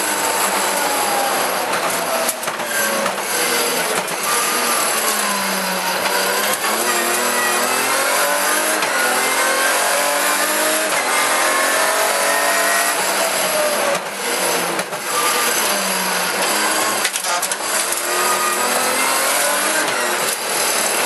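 Rally car engine heard from inside the cockpit at full effort on a stage, its pitch falling for several seconds, then climbing and dropping again a few times as the car slows and accelerates. A few sharp knocks cut through.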